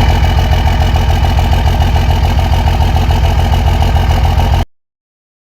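Diesel engine idling with an even, rhythmic clatter. It cuts off abruptly about four and a half seconds in.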